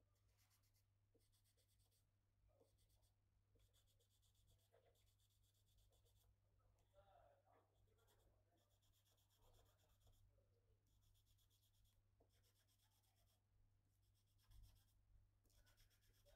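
Very faint scraping and small ticks of hand-working a bamboo root piece for a hulusi, over a low steady hum.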